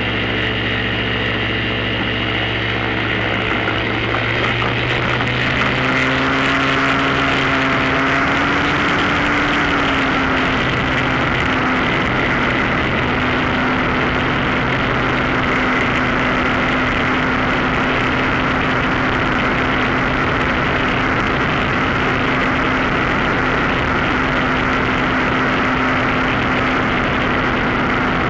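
Mosquito NRG hang-glider power harness, a small two-stroke engine driving a pusher propeller. It runs steadily at first, then is opened up, the pitch rising over several seconds. From about ten seconds in it holds a steady higher-pitched drone at high power for the takeoff run and climb.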